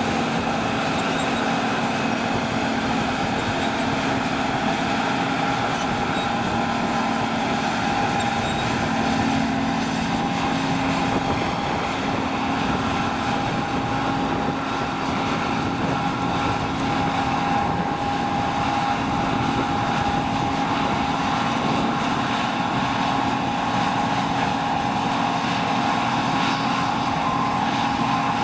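John Deere T560 HillMaster combine harvester running steadily at work: a constant mechanical hum with a faint high whine above it.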